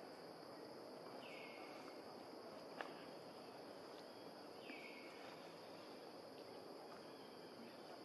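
Faint forest ambience: a steady high insect drone, with a short falling call repeated three times, about three and a half seconds apart. A faint click sounds near the middle.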